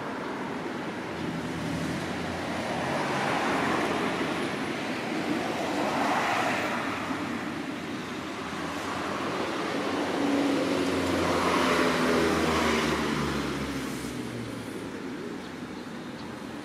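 Road traffic: vehicles passing one after another, each rising and fading, the last with a low engine hum.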